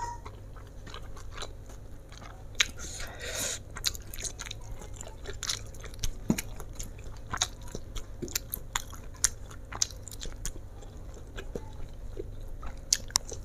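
Close-up chewing of a mouthful of stir-fried flat rice noodles (kwetiau goreng), with many short wet mouth clicks and smacks, and a brief breathy noise about three seconds in.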